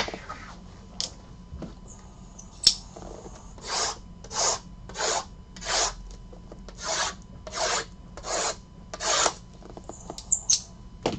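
Hands rubbing and scraping against shrink-wrapped cardboard trading-card boxes, in about nine even strokes a little under a second apart. A sharp click comes first, and another follows a couple of seconds later.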